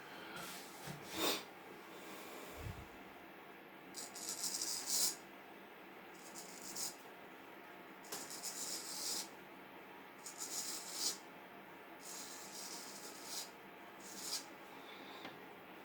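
Strokes of a vintage Norton straight razor shaving a week-old beard: about seven short, high scraping rasps at irregular intervals, each under a second long, as the blade cuts through the stubble.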